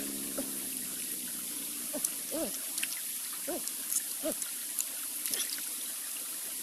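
A person eating raw clams close to the microphone: wet smacking, sucking and small chewing clicks, with several short squeaky mouth sounds between about two and five seconds in.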